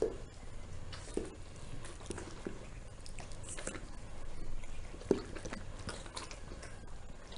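Labrador retriever mother licking and chewing at her newborn puppy to clean it, giving irregular wet smacks and chewing sounds about once a second.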